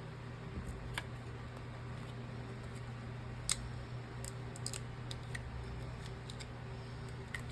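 Scattered small clicks and taps of hand tools working on an iPhone 15 under repair, a handful of sharp ticks spread irregularly, the sharpest about three and a half seconds in, over a steady low hum.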